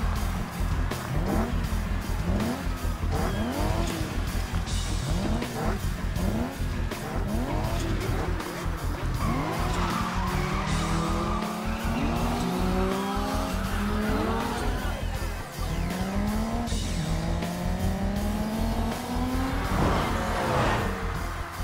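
Racing cars accelerating hard, engines revving up through the gears, the pitch climbing and then dropping with each quick shift, with tyre squeal. Near the end a car rushes close by. A music track with a heavy bass beat plays underneath.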